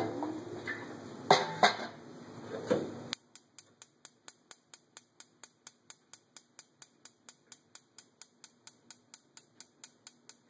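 Bluestar gas range-top spark igniter clicking steadily, about four sharp clicks a second, as it tries to light a burner. Before that, a few knocks over a steady hiss stop abruptly about three seconds in.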